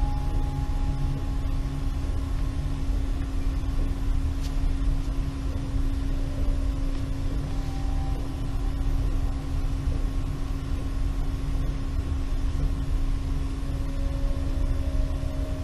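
Ambient relaxation soundtrack: a steady low rumble under a held drone tone, with soft higher tones fading in and out every few seconds.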